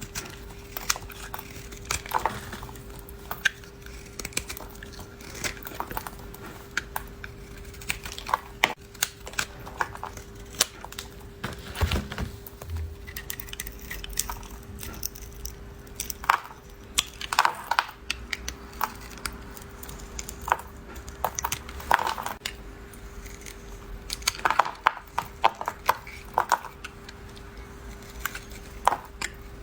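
A knife cutting through bars of dry soap, with crisp crunching and crackling clicks at irregular intervals and a few denser bursts of crunching. A faint steady hum runs underneath.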